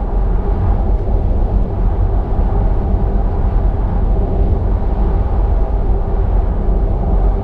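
Steady tyre and wind noise inside the cabin of a Tesla Model 3 electric car cruising on the motorway at about 110 km/h, a low rumble.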